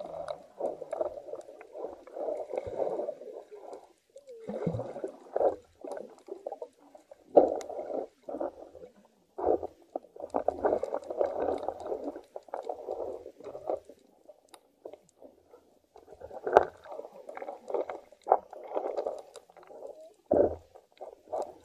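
Water gurgling and rumbling as heard underwater, coming in irregular muffled bursts, with a few sharp knocks.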